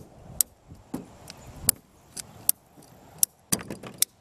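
Ratcheting plastic pipe cutter squeezed shut on a pipe, clicking sharply about every half second with a quick cluster of clicks near the end as it cuts through.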